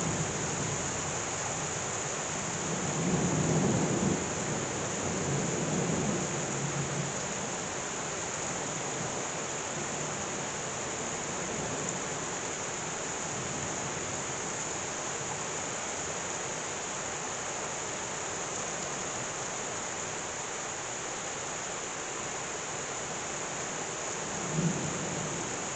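Heavy rain pouring down steadily, with low rolls of thunder a few seconds in and again briefly near the end.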